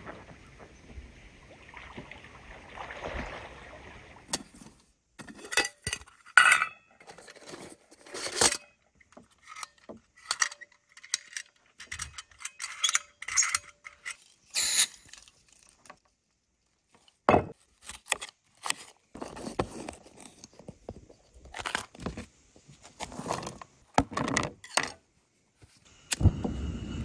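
Clicks, taps and metal clatter of a BRS remote-canister camp stove being unfolded and handled on a wooden picnic table: pot-support arms and legs snapping out and the fuel hose being fitted. About a second before the end a steady rushing sound starts, the stove's gas burner lit.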